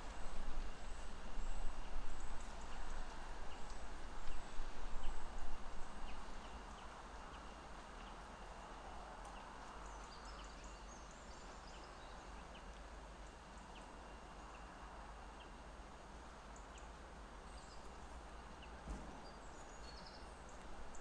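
Outdoor lakeside ambience: a steady hiss with faint, scattered high chirps, over a low rumble that is louder and uneven for the first six seconds, then settles.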